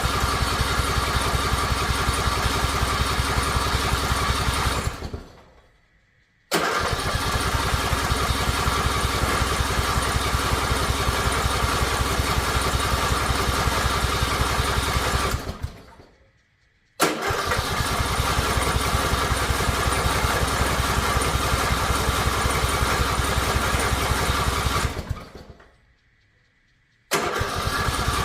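Riding lawn mower engine cranked on its electric starter with the choke on, in long runs of several seconds that stop abruptly three times and start again after short pauses. It turns over evenly but does not catch and run: a hard-starting mower that will not fire.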